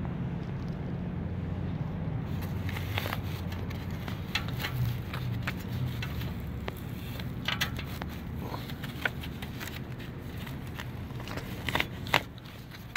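Fibrous baffle packing being pulled by hand out of a Vance & Hines 4.5-inch Destroyer slip-on muffler: scratchy crackling and scraping, with a few sharp clicks near the end, over a steady low hum.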